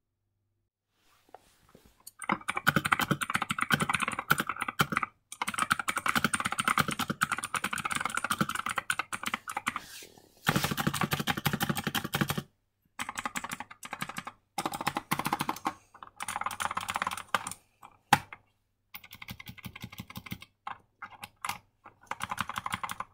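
Kmart $27 mini mechanical keyboard with blue clicky switches, tape-modded, being typed on fast: dense runs of key clicks in bursts of a few seconds with short pauses between, starting about two seconds in.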